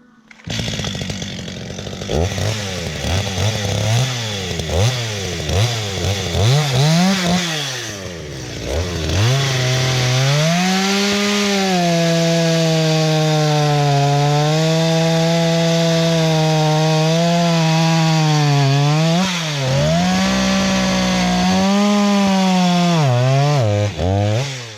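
Small battery-powered chainsaw's electric motor and chain whining. For the first several seconds it is revved in quick bursts, its pitch rising and falling again and again. From about ten seconds in it runs steadily at a high pitch, dipping briefly a few times, then stops at the end.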